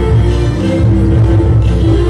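Recorded Argentine folk dance music: string instruments playing a melody over a steady low drum beat.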